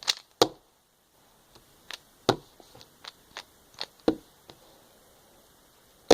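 Rubik's cube being twisted by hand: a series of short plastic clicks and clacks as its layers turn, irregularly spaced, with a pause of about a second near the start.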